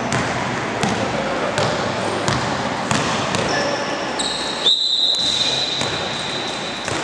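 A basketball dribbled on a gym floor, bouncing about every three-quarters of a second. About four seconds in, a referee blows a long whistle blast to stop play.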